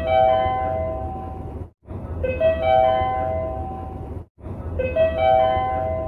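Train service-information update chime, a short rising run of about four bell-like notes, looped so that it repeats about every two and a half seconds with a brief cut between plays. A low rumble of train noise runs under the chime.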